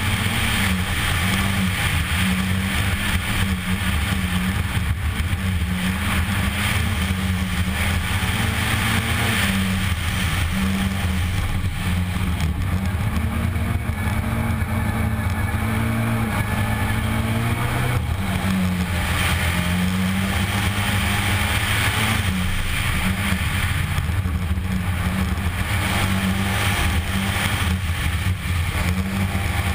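Škoda Fabia R2 rally car's four-cylinder engine driven hard at high revs, its pitch repeatedly rising and dropping with gear changes and lifts, over a continuous rush of tyres on loose gravel, heard from inside the car.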